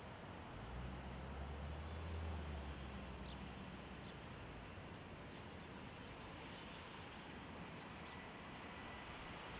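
Faint open-air airport background: a low rumble that swells and fades over the first few seconds, over a steady hiss, with a few short faint high chirps.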